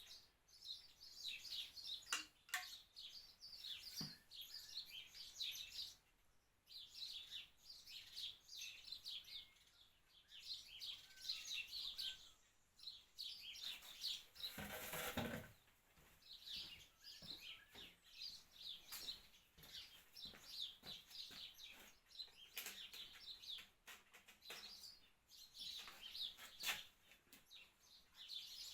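Small birds chirping and twittering almost continuously in the background, with a few sharp clicks and a brief burst of noise about halfway through.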